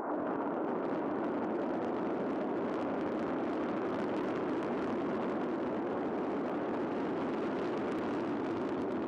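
Soyuz rocket engines firing at liftoff: a steady, dense noise of rocket exhaust that holds an even level throughout.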